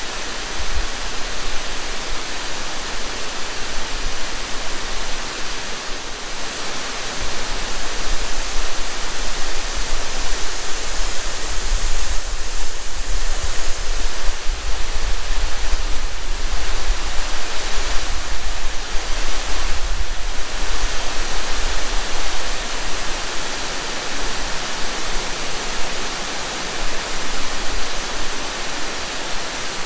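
Steady rushing of a cascading waterfall, heard up close. It swells louder through the middle stretch and eases off again, with a low, uneven rumble underneath.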